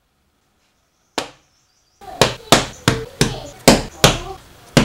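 A single sharp knock, then a quick run of about seven loud, sharp chopping knocks on a hard worktop as the bun dough is cut into pieces.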